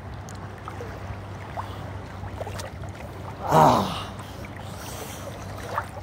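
Calm sea water lapping and gurgling around a camera held at the water's surface, over a steady low hum, with one loud brief burst of noise about three and a half seconds in.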